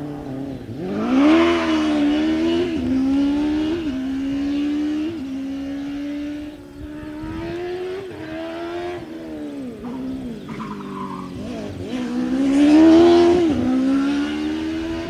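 Formula SAE race car's 2007 Suzuki GSX-R600 inline-four motorcycle engine, breathing through a 20 mm intake restrictor, accelerating hard around a kart track. The engine note climbs and drops back sharply again and again, and is loudest as the car passes close by about a second in and again near the end.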